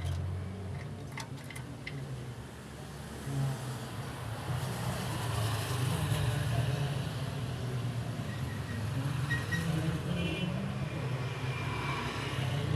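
A motor vehicle's engine running steadily, with a few light clicks about a second in.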